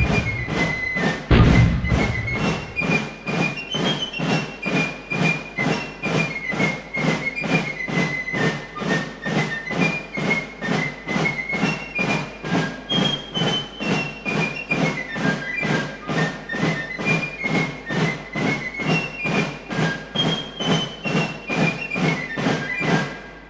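Background music with a steady beat of about two pulses a second under a high melody that steps up and down. Two heavy low thumps come in the first two seconds, and the music fades out at the end.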